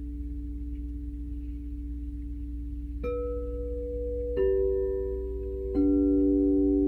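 Crystal singing bowls ringing. At first two earlier bowls hum on steadily. Then three more are struck in turn, about a second and a half apart from about three seconds in, each a lower note than the one before, and each keeps ringing under the next.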